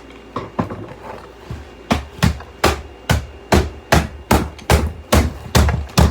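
A few scattered clicks, then from about two seconds in a steady run of hard knocks, roughly two or three a second, each with a deep thud: repeated striking on a hard object, like hammer blows.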